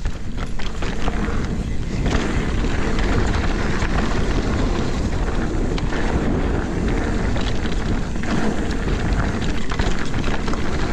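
Mountain bike riding down a rough trail: steady rolling and rushing noise with frequent small rattles and knocks from the bike over the ground.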